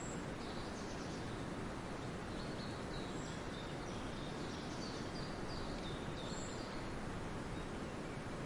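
Steady ambient noise with faint, high bird chirps scattered through most of it.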